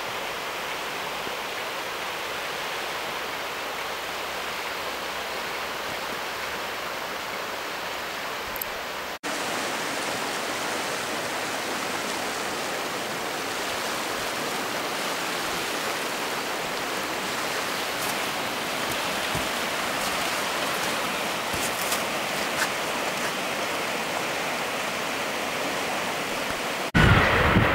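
Swift, turbulent river water rushing, a steady even noise with a brief break about nine seconds in. Near the end a louder, different sound cuts in.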